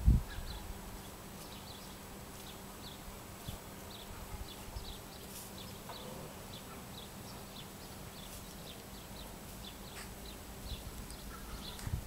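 Small birds chirping, many short high notes repeating irregularly a few times a second, over a faint low steady hum.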